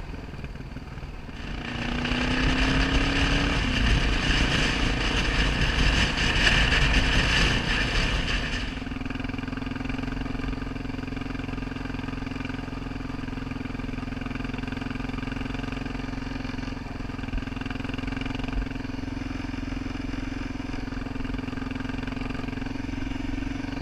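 Motorcycle engine running while riding a dirt road: it picks up speed about two seconds in, with a louder rushing noise until about nine seconds, then settles to a steady cruising note.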